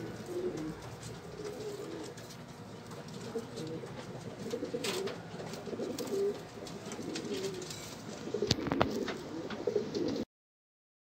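Feather-footed fancy pigeons cooing: a run of low, wavering coos repeating through, with a couple of sharp clicks in the middle and near the end.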